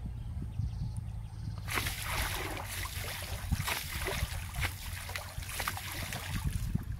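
Shallow flood water splashing and spraying around a fishing net as it is hauled by its rope, starting about two seconds in and going on until just before the end. A low steady rumble lies underneath.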